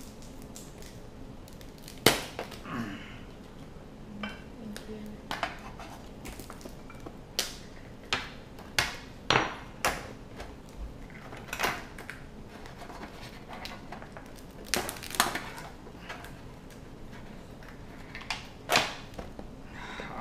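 Shell of a whole steamed red king crab cracking and snapping as its legs are twisted and pulled off the body by hand: a string of sharp, separate cracks, the loudest about two seconds in, with others bunched in the middle and near the end.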